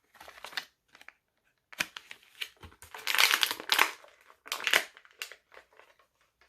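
A toy action figure's packaging being opened by hand: plastic and cardboard crinkling, crunching and crackling in irregular bursts, loudest for about a second a little past halfway.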